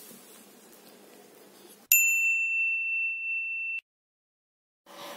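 A single bell-like ding sound effect: one high ringing tone that strikes suddenly about two seconds in, rings on for nearly two seconds and is cut off abruptly, leaving a second of dead silence. Faint room noise comes before it.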